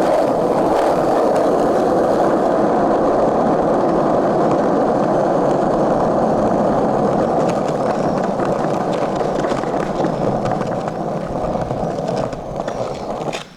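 Hard 53 mm urethane skateboard wheels rolling on pavement, giving a steady rumble that eases off near the end.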